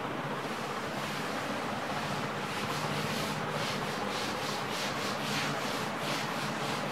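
Chalkboard being wiped clean with a cloth duster: a dry rubbing swish of cloth on slate, turning into quick back-and-forth strokes about two to three a second from a couple of seconds in.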